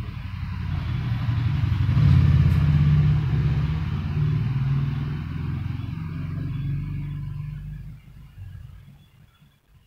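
Engine of a passing motor vehicle, growing louder to a peak about two seconds in and then fading away over the next several seconds.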